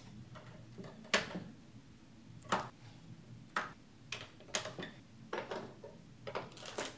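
Plastic LEGO bricks clicking and tapping as the top of a LEGO candy machine is handled, small candies are dropped into its hopper and the roof plates are pressed back on. About ten separate sharp clicks, the loudest about a second in.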